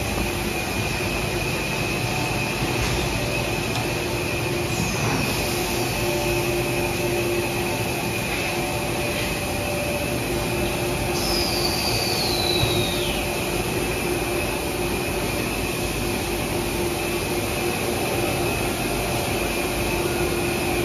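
Stretch film production machines running: a steady mechanical din with a constant high whine and a low hum. A short falling squeal cuts through about halfway through.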